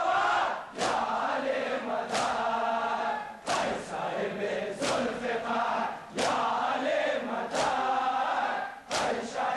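Large crowd of male mourners chanting in unison during matam, the ritual chest-beating. Their open palms strike their bare chests together seven times, about one beat every second and a third, between the chanted lines.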